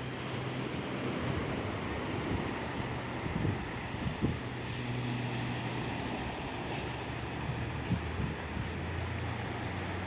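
Sea surf washing steadily onto a beach, with wind buffeting the microphone in low thumps.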